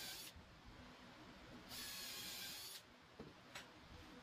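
Cordless drill with a countersink bit cutting into MDF in two short runs, the second about a second long, then a couple of light clicks.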